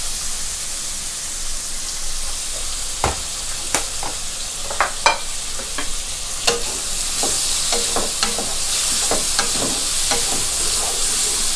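Pork and tofu sizzling in oil in a non-stick wok, being stir-fried with a wooden spatula that clicks and scrapes against the pan. The sizzle gets louder about seven seconds in.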